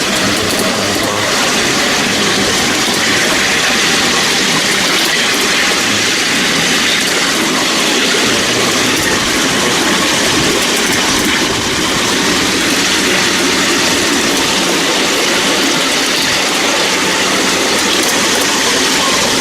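Miniature railway train running along the track, heard from aboard: a steady, even noise of the wheels rolling on the rails.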